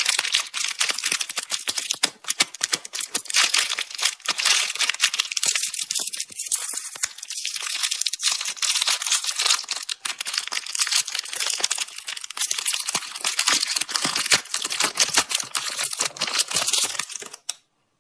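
Plastic candy packaging being handled and crinkled: a dense, continuous crackle of small clicks that stops abruptly near the end.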